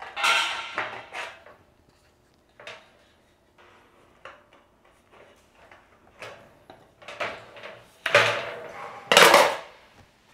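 Tin snips clipping a length of thin black steel wainscot trim, with the sheet metal clanking and scraping as it is handled. There are scattered small clicks and snips through the middle, and the loudest scraping clatter comes about eight and nine seconds in.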